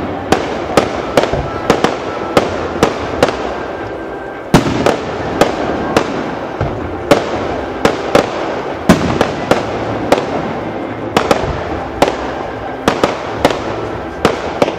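Fireworks display: aerial shells bursting in a rapid, irregular run of sharp bangs, about two or three a second, over a continuous rushing background.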